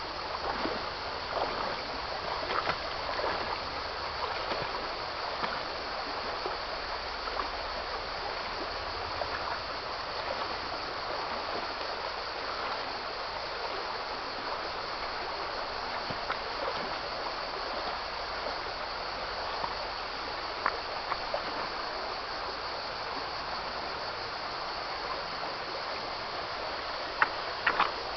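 River water flowing steadily, with now and then a faint tick.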